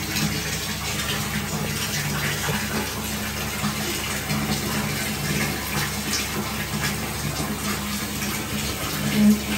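Tap water running steadily into a plastic basin, filling it.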